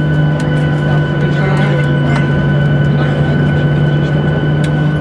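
Inside a parked airliner's cabin after landing: a steady drone and hum from the aircraft, with a few high steady tones, murmuring passengers and a few clicks.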